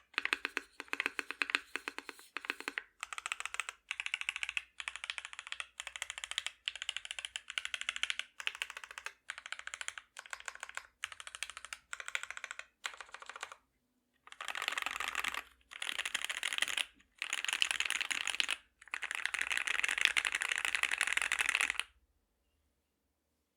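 Typing on a Peachyuu (Kyuu) custom mechanical keyboard with lubed and filmed C3 Tangerine linear switches in a copper plate: short runs of keystrokes separated by brief pauses, then, after a short silence about fourteen seconds in, longer bursts of faster typing that stop about twenty-two seconds in.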